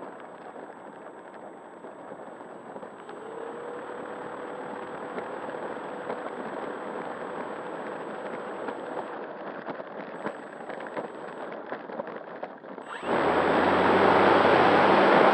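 Onboard sound of a radio-controlled P-51D Mustang's electric motor and propeller at low throttle as it rolls along the runway, with a faint steady whine and light rattling. About 13 seconds in, the throttle is opened for takeoff and the sound jumps suddenly to a loud rush of propeller and airflow.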